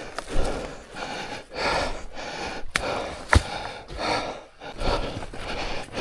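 Heavy panting breaths from a man worn out by hauling a loaded gear cart and heavy backpack, with two sharp clicks a little past halfway.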